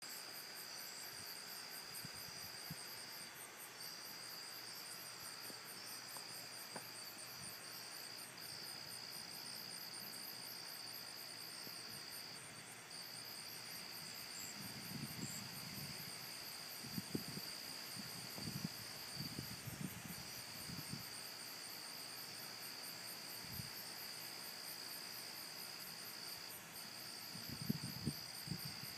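Late-summer night insect chorus of crickets: a steady high trill that breaks off briefly every few seconds, over a faster, higher pulsing chirp. A few brief low knocks and crackles come around the middle and again near the end.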